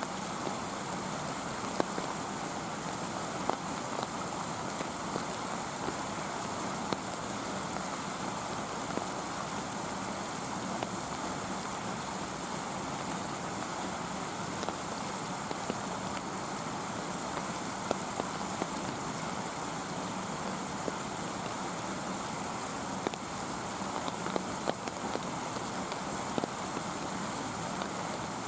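Steady rain falling, a constant hiss dotted with scattered sharp ticks of individual drops.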